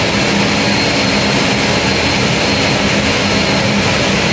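Pratt & Whitney PT6A turboprop engine running steadily on a ground test stand with its propeller turning: a constant rushing turbine noise with a steady high whine over a low hum.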